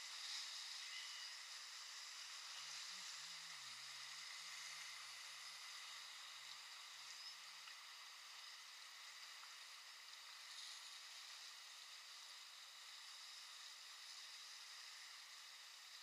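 Faint, steady hiss of rushing whitewater river water around an inflatable raft, swelling slightly about half a second in and again around ten seconds in.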